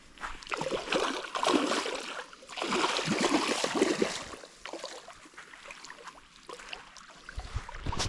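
Hooked carp thrashing in shallow water at the shore as it is being landed: a run of irregular splashes for about four seconds, then settling down.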